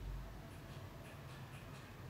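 Faint soft scratching and rustling of fingers working dry flour with yogurt and oil in a steel mixing bowl, over a steady low hum.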